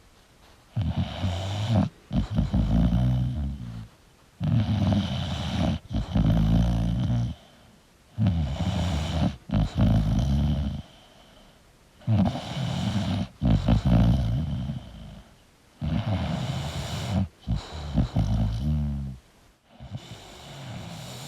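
English bulldog snoring in its sleep: five snoring breaths about four seconds apart, each in two parts, with short quiet gaps between them.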